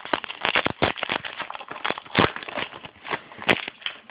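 Trading cards being handled and flipped through, a quick run of crisp clicks and rustles as the cards slide against each other, with one sharper click about three and a half seconds in.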